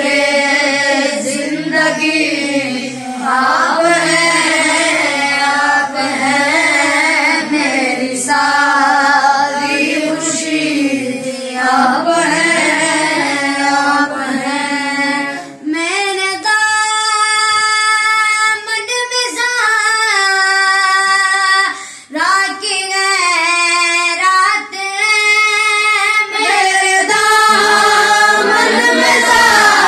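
Group of boys singing an Urdu naat together, unaccompanied, in long held melodic lines. About halfway the lower voices drop away, leaving a higher, clearer line.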